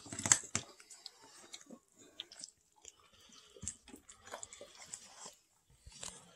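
Young kittens chewing and smacking on canned food, with small irregular clicks and scrapes of the spoon and tin against the plastic tub. A louder knock about half a second in.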